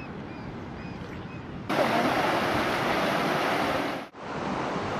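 River water rushing over rocks in a small rapid, a loud steady rush that starts abruptly a little under two seconds in and cuts off sharply about a second before the end. Around it, a quieter outdoor noise bed with a few faint short chirps.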